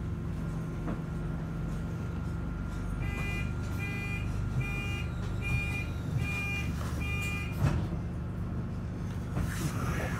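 Double-decker bus idling with a steady hum while its door warning sounds six evenly spaced beeps, under a second apart. A single clunk follows, as the doors close.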